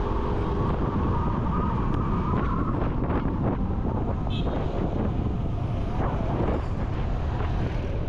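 A vehicle's engine running while travelling, with heavy wind buffeting the microphone; a steady whine fades out about two and a half seconds in.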